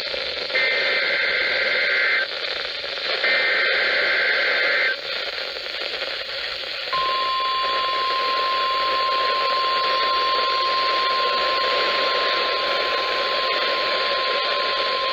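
NOAA Weather Radio weekly test over a hissing radio receiver: two warbling bursts of SAME digital header data tones, then, about 7 seconds in, the steady single-pitch 1050 Hz warning alarm tone begins and holds. Together they make up the routine Required Weekly Test of the warning alarm.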